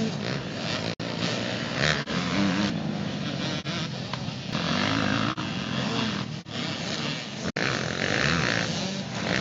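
Motocross dirt bike engines revving up and down as the bikes ride the track, broken by a few abrupt cuts.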